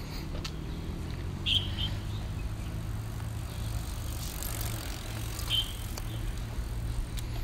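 Outdoor ambience: a steady low rumble with two short, high chirps about four seconds apart.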